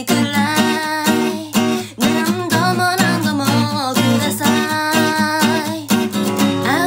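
Steel-string acoustic guitar strummed in a steady, driving rhythm, playing chords.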